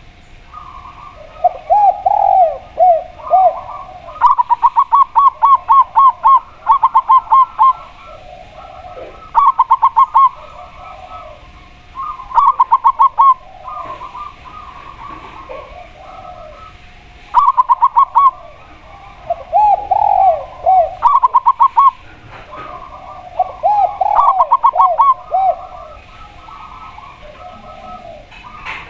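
Spotted dove and zebra dove cooing in turn, in repeated bouts: quick runs of short, higher coos alternate with lower, slower runs of coos that fall slightly in pitch.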